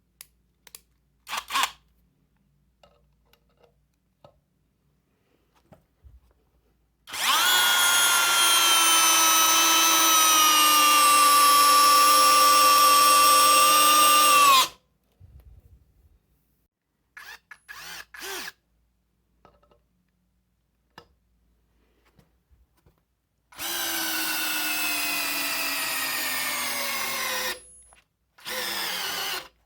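Parkside Me PMBSA 4 A1 cordless drill with a brushless motor and two-speed gearbox, running in several separate runs. There are short bursts, a long run of about seven seconds whose pitch dips as it starts and then holds, and a four-second run whose pitch falls steadily. Light clicks of handling fall in the gaps between runs.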